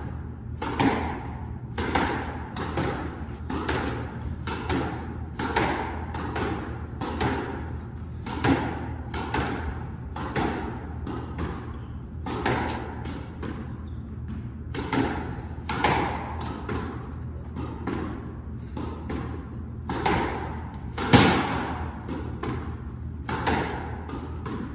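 Squash play: a squash ball struck by racquets and smacking off the court walls and floor, in sharp knocks coming about once a second, with one louder hit near the end.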